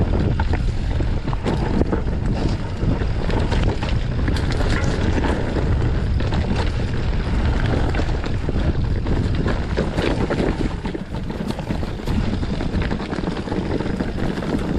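Mountain bike descending a muddy, slippery singletrack, the bike rattling with many small knocks as it runs over the rough trail, with wind rushing over the microphone.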